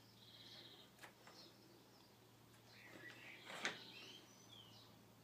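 Near silence over a steady low hum, with faint birds chirping in the background. A soft click about a second in, and a slightly louder one about three and a half seconds in.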